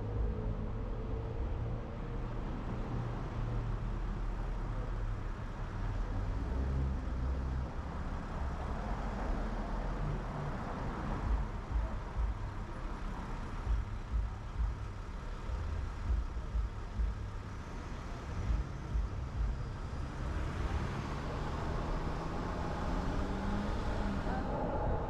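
Road traffic noise while driving through city streets: a steady low rumble of engines and tyres, with a vehicle's engine note rising near the end.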